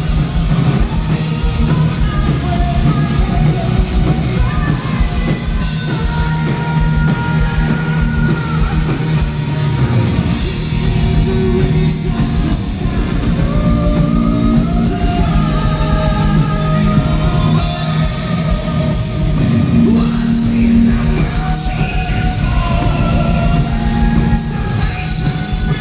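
Symphonic metal band playing live at full volume: a sung vocal melody with long held notes over drums, bass, electric guitar and a string section of violins.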